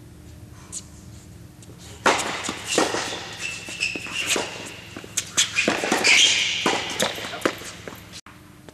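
Tennis being played on an indoor hard court: racket strikes on the ball and ball bounces, with sneakers squeaking and scuffing on the court surface. The first two seconds are quiet, then a fast run of sharp hits and squeaks follows for about six seconds.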